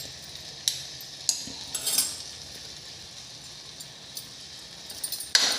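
A spatula clinking and scraping against a kadhai a few times as ginger paste and jaggery are stirred, with a steady sizzle from the pan.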